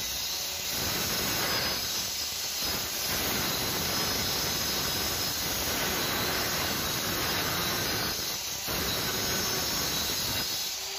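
Handheld electric cutter machine running at speed as it is swung round a centre-nail pivot, its circular blade scoring a shallow circular groove into a board. A steady whine and hiss, dipping briefly a few times. This is the first shallow pass: the blade is lowered a little at a time, since a full-depth cut can jam the blade or burn out the motor.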